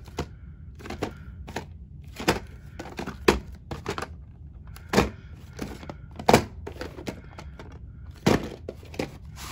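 A VHS tape in its cardboard slip cover being handled and turned over, making irregular taps and knocks about once a second, the strongest two in the middle.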